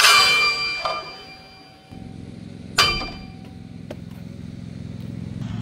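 Hammer striking the rusted front hub and brake rotor of a Ford Transit twice, about three seconds apart, each blow clanging and ringing in the metal, to drive out the seized front wheel bearing hub. A low steady hum sets in about two seconds in.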